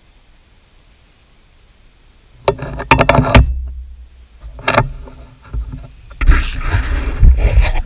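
Metal clicks and clunks from the lathe's tool post being adjusted by hand, then about six seconds in the metal lathe runs and the tool cuts metal, a loud dense noise over a low rumble.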